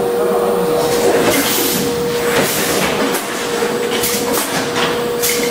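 Schäfer & Flottmann automatic case-packing machine running: a constant mechanical tone and clatter, cut through roughly once a second by short sharp hisses and clacks from its pneumatic cylinders as cardboard cases are erected and product blocks are pushed along.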